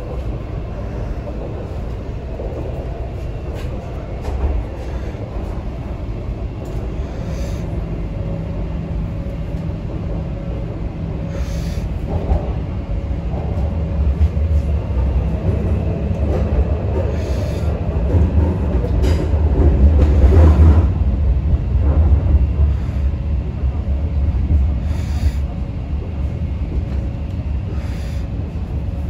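Interior of an MTR Kwun Tong Line C-train running: a steady low rumble of wheels and motors on the track, with scattered clicks. It grows louder about halfway through and then eases off again.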